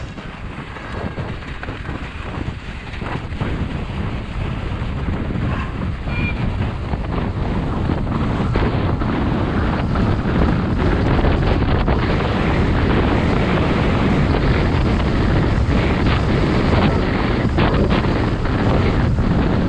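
Wind buffeting the microphone of a mountain bike descending fast over a snowfield, with the bike's tyres and frame rattling over the soft, rutted snow in short knocks. The rush builds over the first several seconds as speed rises, then holds steady.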